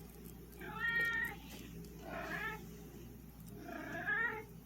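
Domestic cat meowing three times, short calls spaced about a second and a half apart.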